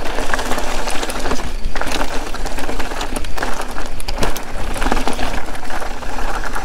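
Mountain bike rolling downhill over a loose, rocky trail: tyres crunching and skittering on loose stones, with many small sharp knocks and rattles from the bike. A steady low rumble of wind on the chest-mounted camera's microphone runs underneath.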